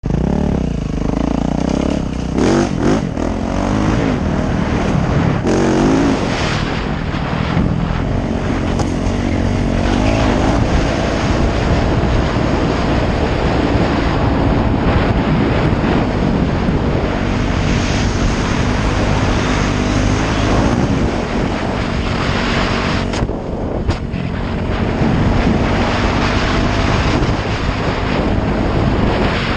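Yamaha YZ450F's single-cylinder four-stroke engine running under way, revving up and down with the throttle, easing off briefly about three quarters of the way through.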